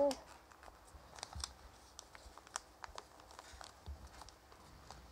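Origami paper being folded and creased by hand: faint, scattered crinkles and small ticks of paper.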